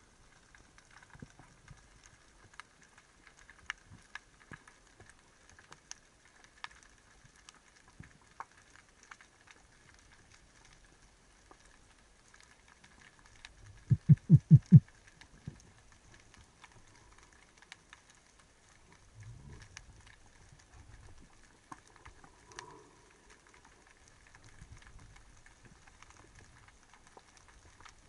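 Underwater ambience picked up by a speargun-mounted camera in its housing: faint scattered clicks and crackles over a thin steady whine. About halfway through comes a quick run of about six low, loud thumps.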